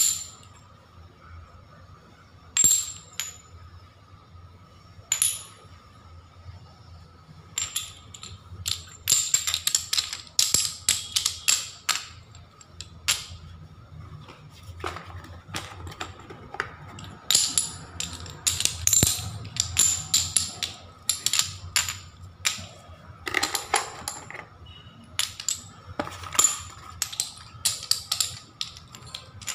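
Small glazed ceramic tiles clicking and clinking against one another as they are picked up and stacked. A few single clicks at first, then quick runs of clicks.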